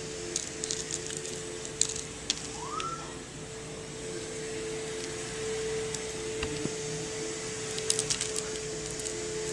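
Scattered small clicks and crackles of dry quick oats being handled and sprinkled onto peanut-butter-coated dog biscuits on a paper plate, over a steady hum. One brief rising squeak about two and a half seconds in.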